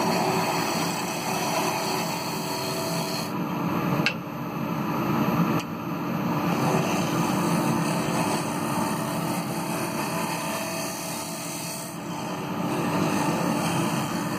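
Gouge cutting into the spinning kiln-dried ash bowl on a wood lathe as the inside is hollowed, giving a continuous rough scraping-cutting noise over the lathe's steady motor hum. The cut eases briefly about four and six seconds in.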